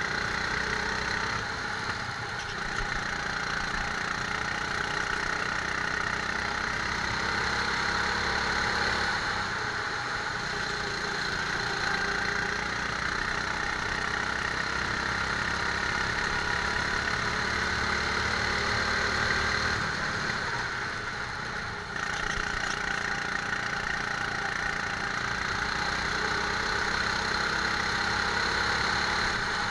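Rental go-kart's small engine running steadily under throttle as the kart laps, heard from a camera mounted on the kart. It eases off briefly about ten seconds in and again just past twenty seconds.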